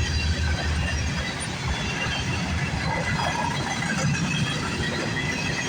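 CN freight train cars rolling past on the rails with a steady rumble and faint wheel squeal.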